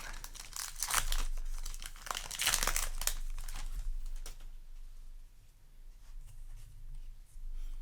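Foil booster pack wrapper crinkling and tearing as a trading-card pack is opened, with dense rustling for about the first four seconds, then fainter handling noise.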